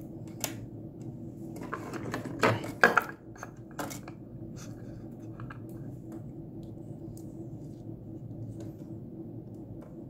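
Hands handling a small circuit board and a black plastic housing: a few sharp clicks and taps in the first four seconds, then only small faint ticks over a steady low hum.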